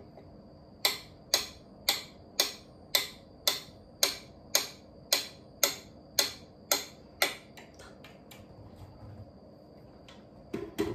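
Pendulum metronome ticking at 112 beats per minute, a sharp tick about every half second. About seven seconds in the ticks turn much fainter but keep the same beat.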